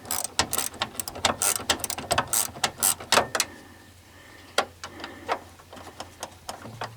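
Ratcheting box-end wrench clicking as a door hinge bolt is backed out: a quick run of ratchet clicks for about three seconds, then a few scattered clicks.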